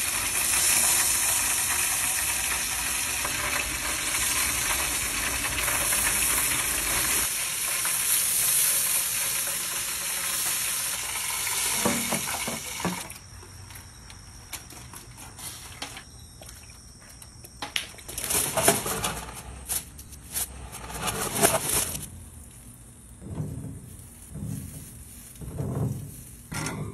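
Steady sizzling of meat cooking on a grill for about the first half. Then much quieter, with scattered short noises and soft knocks.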